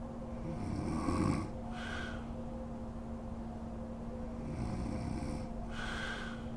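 A sleeping woman snoring: two rasping snores about four seconds apart, the first louder, each followed by a short breathy sound.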